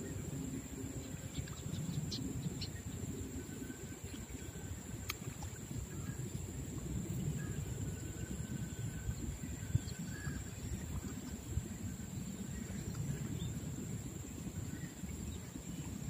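Riverbank ambience: a steady low rumbling noise with a thin high steady whine over it, and one sharp click about five seconds in.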